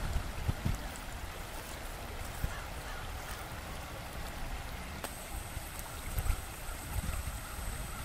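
Shallow river rushing over rocks and through riffles in a steady wash of water, with an uneven low rumble underneath. A faint high steady whine joins about five seconds in.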